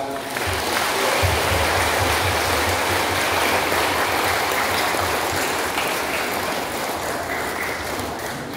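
Congregation applauding: dense clapping that starts suddenly and slowly dies down near the end.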